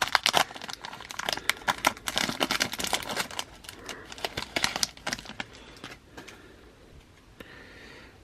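Baseball card pack wrapper crinkling and tearing as it is pulled open by hand: a dense run of crackles that dies away after about six seconds.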